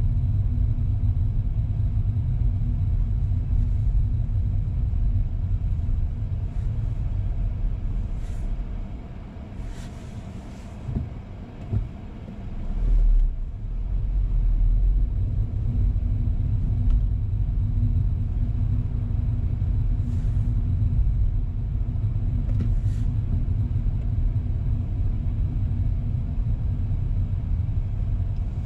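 Steady low rumble of a car's engine and tyres heard from inside the cabin while driving on city streets, with a faint steady hum. Near the middle it drops away for a few seconds, then comes back with a short, loud low surge.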